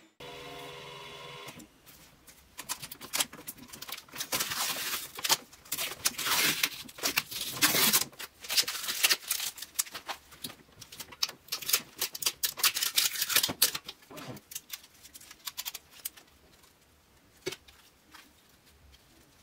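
Geeetech E180 3D printer printing: a brief steady motor whine, then its stepper motors chattering in rapid, irregular clicking moves that die down to a few scattered clicks near the end.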